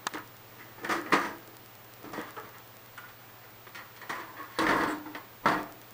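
Desktop computer side cover being handled against the case as it is lined up: a few sharp knocks and clicks, with a brief scrape near the end.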